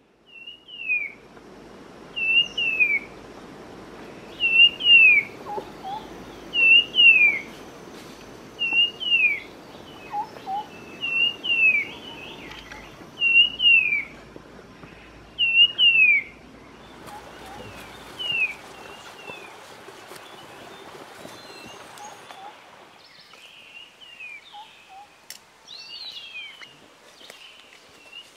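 A bird repeats a short whistled call that falls in pitch, about a dozen times over the first sixteen seconds. After that, scattered calls of other birds take over, all over a soft steady forest background.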